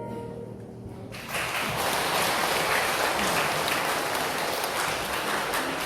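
The held final chord of a flute quartet dies away, and about a second in an audience breaks into applause that goes on steadily.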